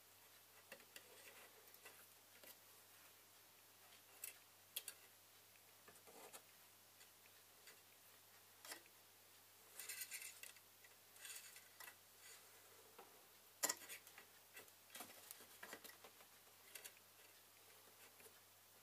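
Near silence: quiet room tone with scattered faint clicks and taps. The loudest click comes about two-thirds of the way through.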